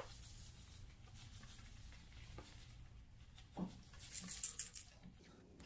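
Faint rustle of dry scenery soil in a hand-held mesh sifter, with a soft knock a little past three seconds in and a brief, louder rustling patter of grains about four seconds in.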